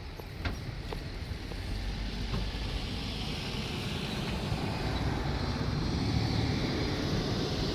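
A passing vehicle's steady running noise, a low rumble with a hiss, slowly growing louder.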